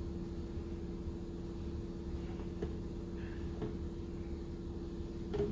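A steady machine hum with a constant tone over a low rumble, with a couple of light knocks near the end.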